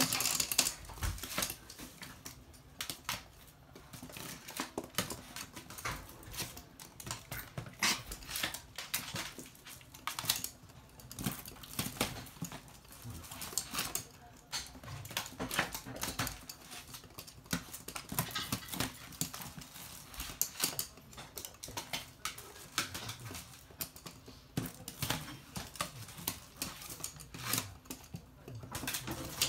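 Toy poodles' claws clicking and skittering on a hard floor as they run about, irregular quick taps.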